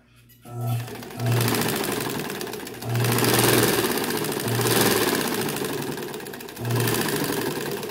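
Old domestic sewing machine driven by a washing-machine (tanquinho) motor, stitching a piece of T-shirt cloth at high speed. It starts about half a second in and runs in several surges, speeding up and easing off, with a low motor hum under the rapid needle clatter.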